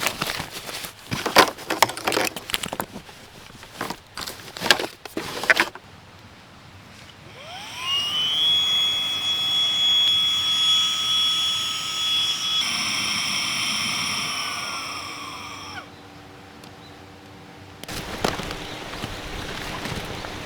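A series of handling clicks and knocks, then a small motor that spins up with a rising whine, runs steadily for about eight seconds, and winds down with a falling pitch. A steady hiss starts near the end.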